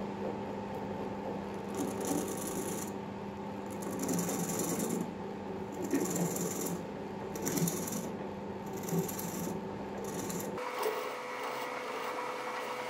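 Wood lathe running with a steady motor hum while a narrow chisel cuts into a spinning plum-wood bowl blank in short scraping passes, about one every second or two. Near the end the hum changes to a different steady tone.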